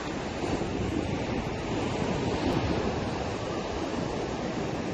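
Surf at high tide breaking and washing against a concrete seawall, a steady rush of water, with wind buffeting the microphone.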